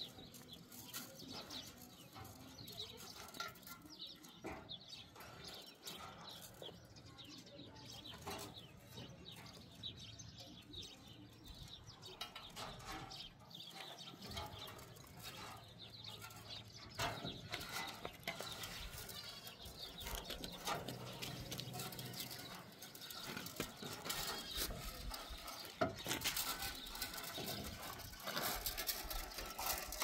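Goats bleating now and then among scattered knocks and clatter.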